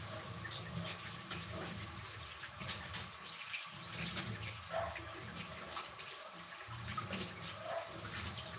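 Water running and splashing unevenly, with many small irregular splashes.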